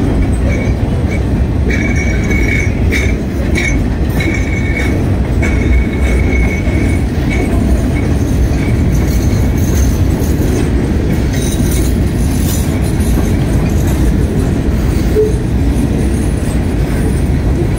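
A freight train of boxcars rolling past close by: a steady heavy rumble of steel wheels on rail, with a thin high wheel squeal that comes and goes several times in the first six seconds or so.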